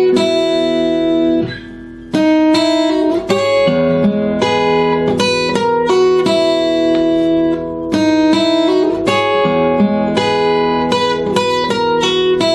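Acoustic guitar played fingerstyle: a run of plucked notes and chords, with a short break about a second and a half in before the playing resumes.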